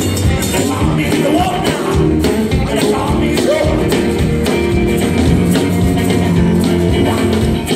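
Rockabilly band playing live: upright bass, acoustic and electric guitars and drums.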